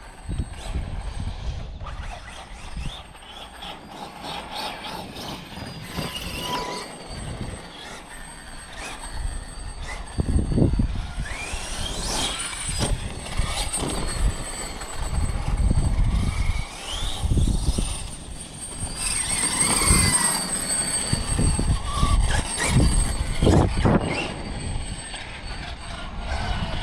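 Large 1/5-scale electric RC desert truck being driven hard: its motor whines up and down in pitch with the throttle, over a low rumble of tyres and wind that surges repeatedly.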